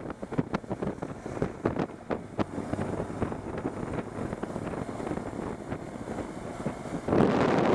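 Wind buffeting the microphone of a camera on a moving motorcycle, an irregular gusty rush and thumping over the bike's road noise. The rush grows louder about seven seconds in.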